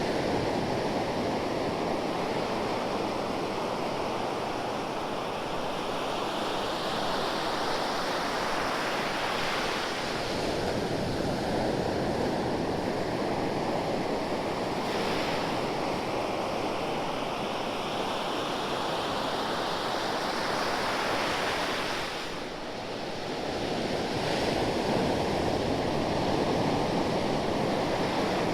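Ocean surf: waves breaking and washing on the shore in slow, continuous swells, with a brief lull about three-quarters of the way through.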